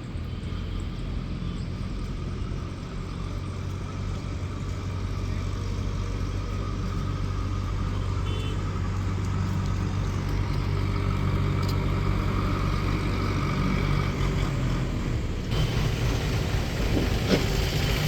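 Steady low hum of a running vehicle engine, with a few faint high chirps above it.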